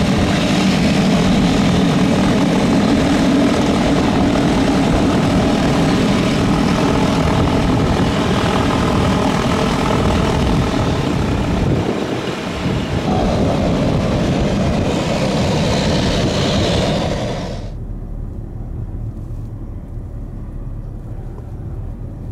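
Pilatus PC-12 NG single turboprop engine and propeller running loud and steady on the ground. About 17 seconds in, the sound drops abruptly to a fainter low rumble of the plane in the air, climbing away.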